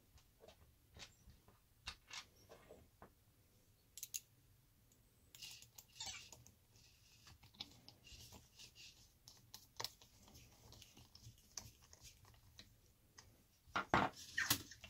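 Scattered light clicks and taps of plastic and metal parts as an RC car's front wheels and suspension are handled and adjusted with a hex driver, with a louder flurry of clicks near the end.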